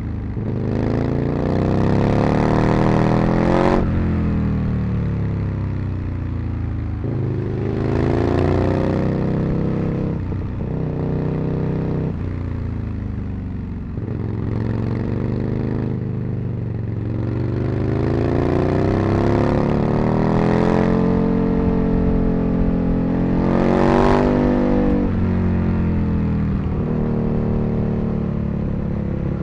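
Aprilia RSV Mille's 60° V-twin engine under way, revving up through the gears. Its pitch climbs under acceleration and drops sharply at each gear change, several times over, with stretches where it falls back off the throttle.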